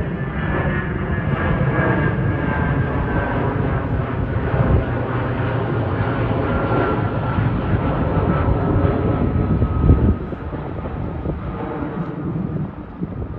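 Avro RJ100 water bomber flying past, its four turbofan engines running loudly with whining tones that slowly fall in pitch as it passes. The sound drops away sharply about ten seconds in.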